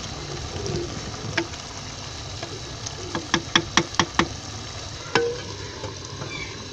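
A spatula stirring potatoes and fenugreek leaves in a clay pot, knocking against the pot about six times in quick succession a little after three seconds, over the steady sizzle of the curry cooking down as its water dries off. About five seconds in, a single knock with a short ring is heard as the clay lid is handled.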